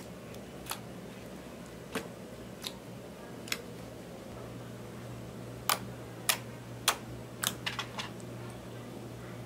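Clear slime mixed with purple eyeshadow being pressed and poked by fingers, giving sharp clicks and pops as trapped air bursts. The clicks are scattered at first, then come in a quick run of several in the second half.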